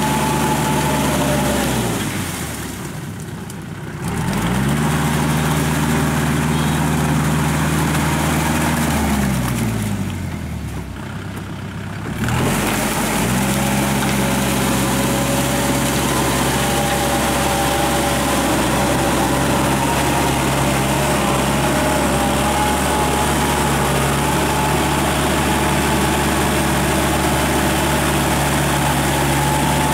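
Kubota L5018 tractor's diesel engine running steadily while it drives a Maschio rotary tiller through flooded paddy mud, with a thin steady whine above the engine note. Twice the engine note falls away and the sound dips for a couple of seconds, then climbs back to full running.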